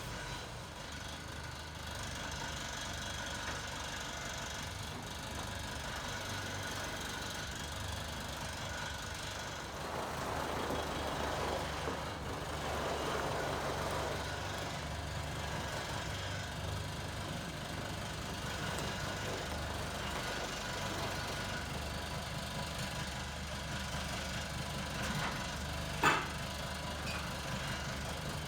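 A truck engine idling steadily with a low rumble. A louder rushing noise comes about ten seconds in, and a single sharp knock sounds near the end.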